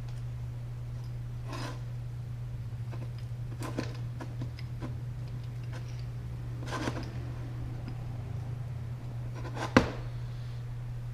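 Small steel transfer inserts being handled and tried in a vise jaw's threaded holes: a few light metal clicks and scrapes, the sharpest one near the end, over a steady low hum.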